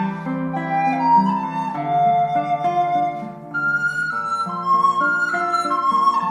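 Background music: a flute melody of held notes over a lower accompaniment.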